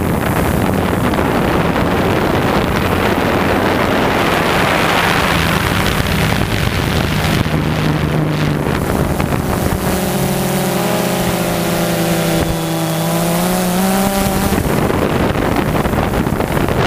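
Quadcopter drone's motors and propellers humming steadily, heard through the drone's own onboard camera, with wind rushing over the microphone. About ten seconds in, a cluster of higher motor tones comes in for about four seconds and then drops away.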